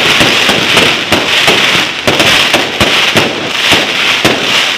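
Fireworks going off continuously: rapid overlapping bangs and pops over a dense crackling fizz.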